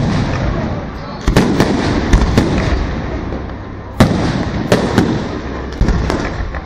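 Aerial fireworks bursting: about seven sharp bangs at uneven intervals, the loudest about four seconds in, with a trailing rumble and noise between the bursts.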